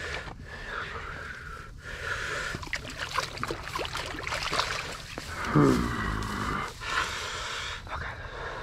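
Tall grass rustling and crackling as a landing net holding a brown trout is dragged and handled through it, with a short low vocal sound falling in pitch a little past halfway, the loudest moment.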